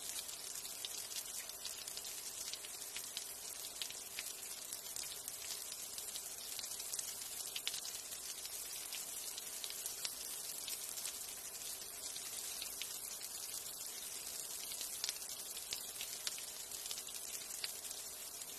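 Light rain falling steadily: an even, high hiss with many separate drops ticking through it.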